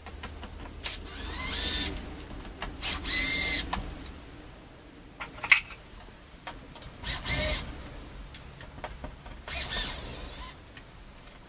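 Cordless impact driver running in several short bursts, each under a second, its motor whine rising in each burst, as it backs screws out.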